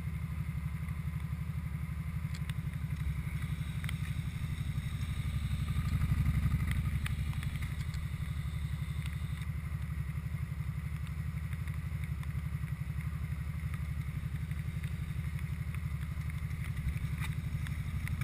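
ATV engine idling with a steady low rumble, getting louder for a moment about six seconds in.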